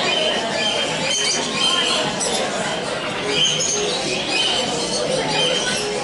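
Caged finches giving short, repeated chirps over a steady babble of crowd voices.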